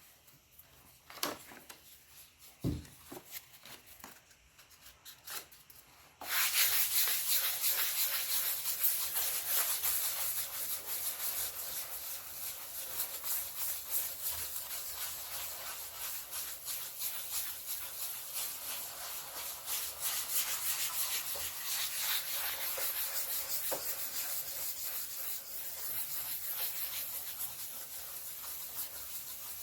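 Sandpaper rubbing steadily over a clear-coated model part, knocking down orange peel in the 2K clear coat; a few light handling clicks come first, and the sanding starts about six seconds in.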